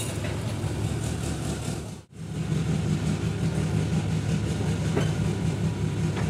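JCB backhoe loader's diesel engine running steadily under work, a low continuous hum, cut off briefly about two seconds in before it carries on.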